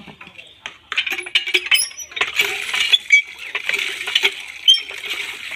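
Water from a hand pump gushing and splashing into a metal pan of goat tripe being washed, with sharp metallic clinks mixed in. The splashing starts about a second in.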